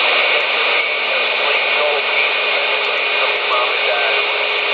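CB radio receiver tuned to about 27.18 MHz, its speaker giving a steady rush of static with faint, garbled voices of distant stations coming through underneath.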